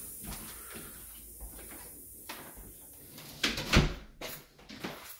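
A door thudding and rattling in a short cluster of knocks about three and a half seconds in, followed by a couple of lighter knocks.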